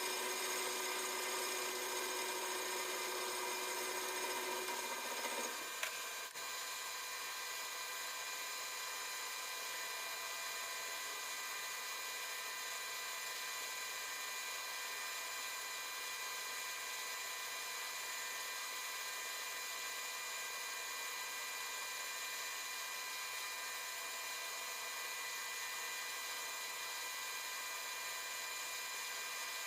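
Lathe running with a steady high-pitched whine. About five and a half seconds in, a lower, rougher layer of sound stops with a click, and the machine runs on at a steady whine.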